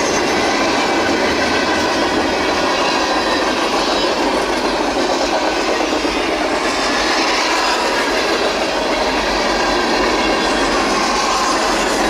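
Norfolk Southern freight train's cars rolling past close by, a steady, loud clatter of wheels over the rail joints.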